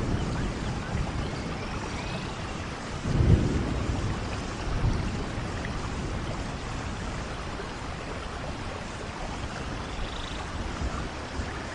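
Rainforest thunderstorm: steady, heavy rainfall with a peal of thunder about three seconds in, its low rumble dying away over the next couple of seconds, and a smaller rumble shortly after.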